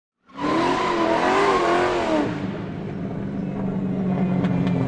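Car engine starting loud with a wavering, revving pitch, then settling about two seconds in into a steady low drone.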